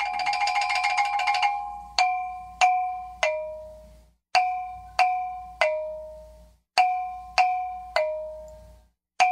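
Music on a mallet instrument: a fast roll of struck notes for about a second and a half, then a slow three-note figure played three times, the third note lower each time. Every note rings out and fades before the next.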